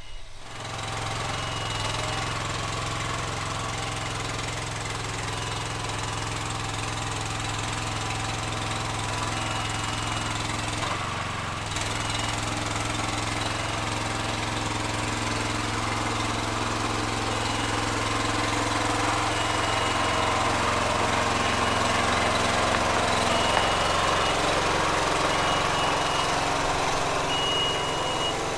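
Engine of a tracked lift running steadily as the lift travels under its own power, getting a little louder in the second half. A travel alarm sounds short high beeps every few seconds.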